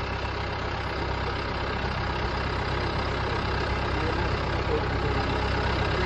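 A heavy machine's engine running steadily at idle, getting gradually a little louder.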